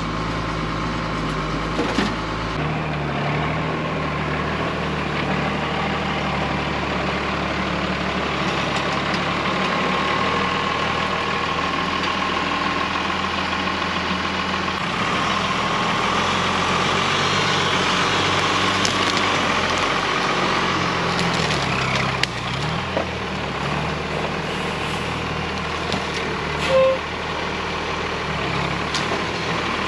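Oshkosh dump truck's Cummins 6BT diesel engine running as the truck is driven, its note shifting in steps. Branches and brush crack and scrape under and against it, with a brief louder crack near the end.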